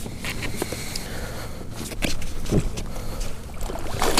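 Handling noise on a body-worn camera as the angler fights a hooked fish: jacket sleeves rustling across the microphone and scattered irregular knocks, over a low rumble of wind.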